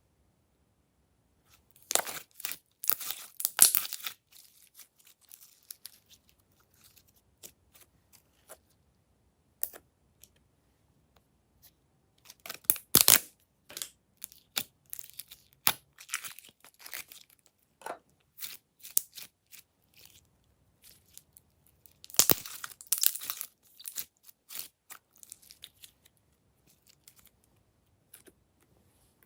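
Glossy slime being worked by hand: three bouts of sticky crackling and tearing as it is pulled and squeezed, with scattered single clicks and pops in between.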